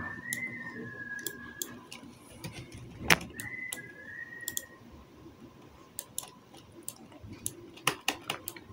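Computer mouse and keyboard clicking at irregular intervals, with one sharper click about three seconds in. Two high whistle-like tones, each about a second and a half long, come at the start and just after the loud click.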